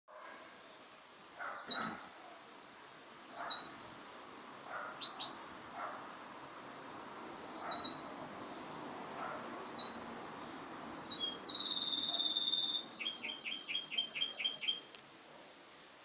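Domestic canary giving short, sharp chirps every couple of seconds, then breaking into song near the end: one held whistled note followed by a fast trill of about ten notes that stops suddenly.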